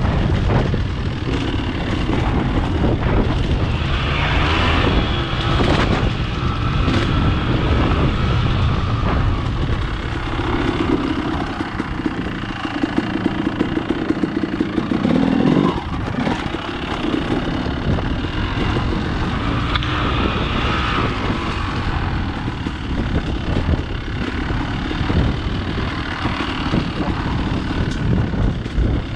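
Dirt bike engine running under varying throttle on a rough trail, its revs rising and falling as the rider slows and speeds up, with one sharp rev rise about halfway through.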